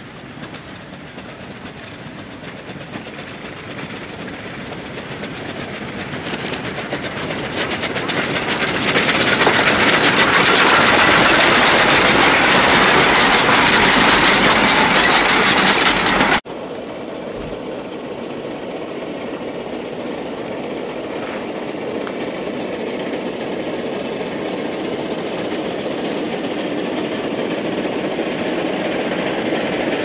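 Narrow-gauge C2 steam locomotive running along the track, growing steadily louder as it approaches and passes close by. After a sudden cut about halfway through, it is heard again farther off, slowly growing louder.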